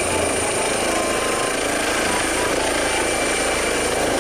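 Toy helicopter making its helicopter sound: a steady clatter with a thin high whine over it.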